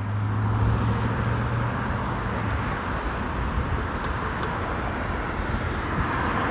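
Road traffic passing on a busy boulevard: a steady rush of tyres and engines, with a low engine hum that fades out about two and a half seconds in.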